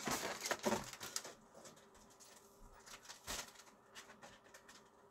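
Light handling noise: soft rustling and small taps that fade after about a second, with one more brief tap a little past three seconds.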